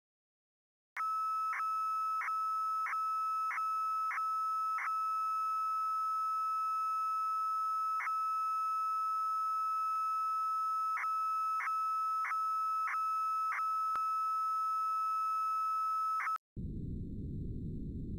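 Receiver audio from an RTL-SDR dongle: a steady high tone with a dozen or so brief dropouts, starting about a second in. This is a carrier signal demodulated to a beep. Near the end it switches to a low rushing hiss as the receiver is tuned onto a wide digital broadcast signal.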